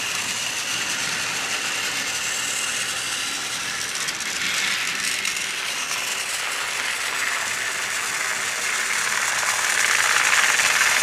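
Battery-powered Trackmaster Stephen toy trains running on plastic track, a steady whirring gear rattle from the motors, wheels and coupled tender and coach, growing a little louder near the end.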